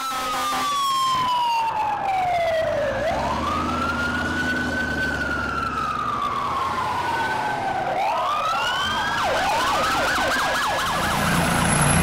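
Fire engine siren sounding a slow wail that falls and rises twice, then switching to a fast yelp about nine seconds in, over a low engine rumble.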